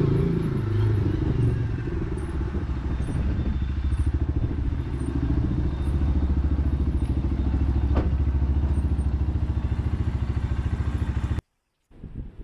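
Buccaneer 125 motorcycle engine running steadily, a close, even pulse of firing strokes. It stops abruptly about eleven seconds in, and a brief short sound follows just before the end.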